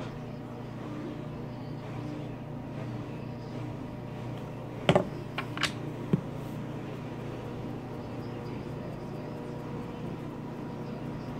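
A steady low hum in a small room, with a few sharp clicks and knocks about five seconds in as small objects are handled and set down on the table.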